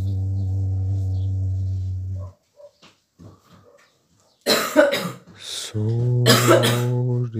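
A person coughing hard in a few fits, starting about halfway through; these are the loudest sounds. A low steady drone breaks off after about two seconds and comes back a little higher during the second fit of coughing.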